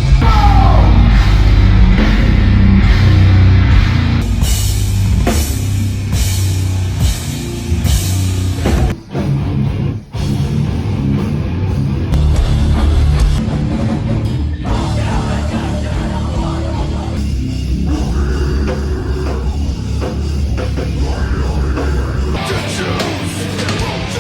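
Loud heavy metal music with a drum kit, which drops out briefly twice near the middle.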